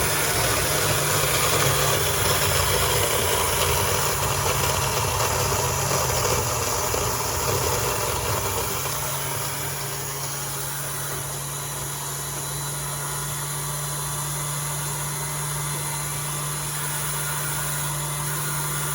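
Countertop blender running on a load of ice, frozen strawberries, banana, orange juice and yogurt. The motor holds a steady hum. The grinding of the frozen fruit and ice is louder and rougher for the first eight seconds or so, then settles into a steadier, slightly quieter run.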